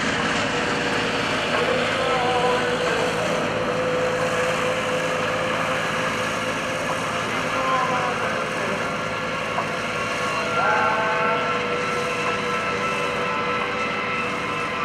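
C-5B Galaxy's four General Electric TF39 turbofans running steadily at taxi power: a constant jet noise with a held whining tone.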